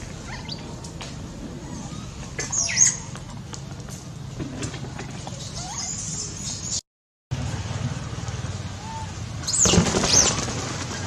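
Shrill squeals of a young macaque, each call sweeping down in pitch: one about three seconds in and a louder run of them near the end, over a steady background hiss. The sound drops out for a moment in the middle.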